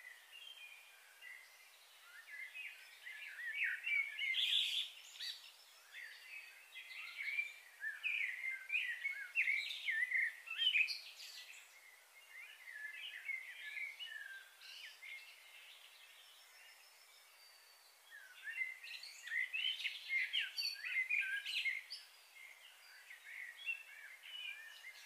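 Small birds chirping and twittering in busy bursts, with quieter spells between.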